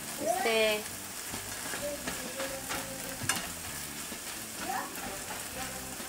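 Chopped onion and tomato sizzling in a nonstick frying pan while a plastic spoon stirs and presses them, with a few short scrapes against the pan. A brief vocal sound just after the start.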